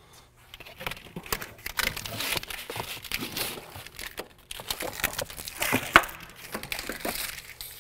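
A wire harness being fed through a truck's firewall: irregular rustling and scraping of plastic-covered wires, with small clicks and knocks and one sharper click about six seconds in.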